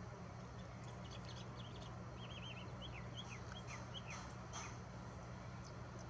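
Eastern kingbird calling: a run of short, high chirps with a quick trill in the middle, fading out about four and a half seconds in, over a steady low hum.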